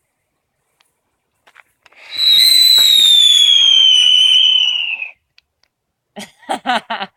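Firework whistle: a loud, shrill whistle over a hiss, lasting about three seconds and falling slowly in pitch before it cuts off.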